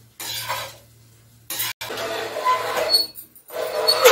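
A steel perforated ladle stirring and scraping rice around a wok in three spells: briefly near the start, a longer one through the middle, and again near the end, with a few short metallic squeaks and clinks.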